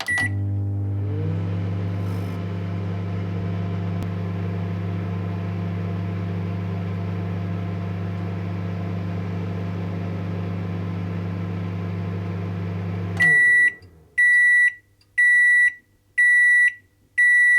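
Microwave oven: a short beep as it is started, then a steady low hum as it runs for about thirteen seconds. The hum stops suddenly and five loud beeps about a second apart follow, the signal that the cooking time is done.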